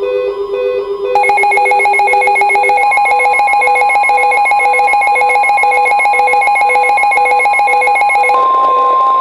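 Electronic weather-alert tones. Softer pulsing tones at first. About a second in, a loud, rapid electronic beeping alarm starts suddenly. About eight seconds in, it gives way to one steady high tone, the NOAA Weather Radio warning alarm tone that comes before a warning message.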